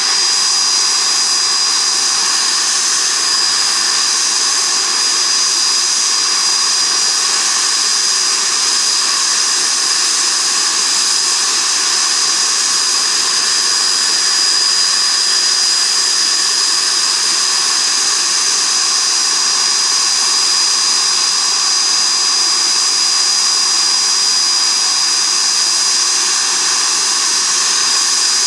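Blackburn Buccaneer's twin Rolls-Royce Spey turbofans running steadily on a ground engine run: a loud, steady high-pitched whine over a constant rushing roar.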